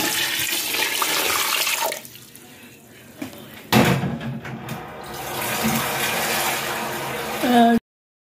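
Water poured into a metal cooking pot over raw beef chunks and whole spices, splashing as the pot fills: the water going in for the pulao's meat stock. The pouring runs in two spells, the second starting with a loud splash a little under four seconds in, and the sound cuts off abruptly near the end.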